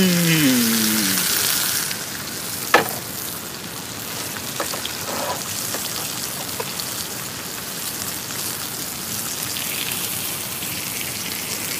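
Beef steak sizzling in a frying pan on a portable cassette gas stove, louder for the first two seconds, then steady. A single sharp knock comes about three seconds in.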